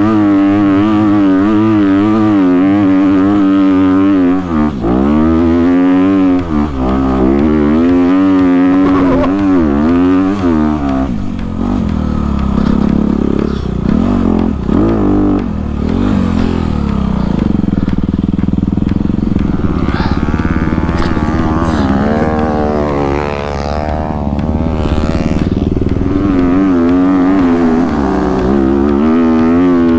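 Dirt bike engine revving up and down under load on a sandy hill climb, its pitch rising and falling again and again with the throttle.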